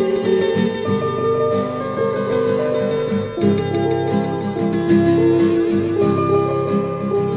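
Music played on a plucked string instrument: a steady run of ringing notes over held lower tones.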